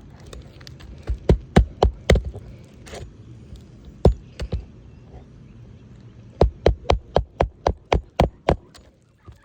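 Hammer driving roofing nails into a replacement asphalt shingle: runs of sharp blows, a group of about six, a few single strikes, then a quick run of about ten at four to five a second near the end.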